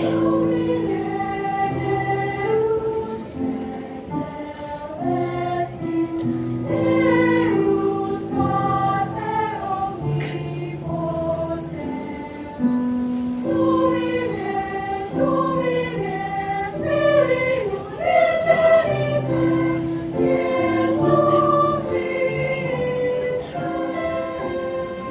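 Children's choir singing a church song in several parts, the voices holding long notes and moving together from chord to chord.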